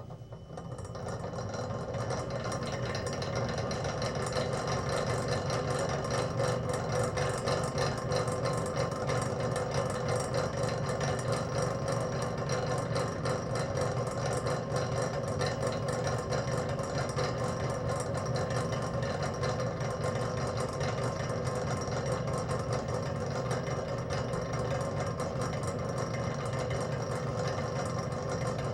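A spinning machine running idle, with a steady mechanical hum and a fast, even clatter. It fades up over the first couple of seconds.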